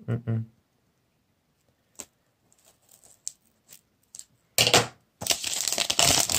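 Plastic shrink wrap being torn off a sealed phone box: a short rip a little over four and a half seconds in, then dense crinkling and crackling of the plastic film.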